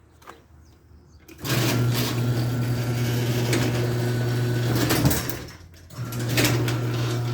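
Cheap humidifier switched on, running with a steady electric buzz. It cuts out about four seconds later and starts again a moment after.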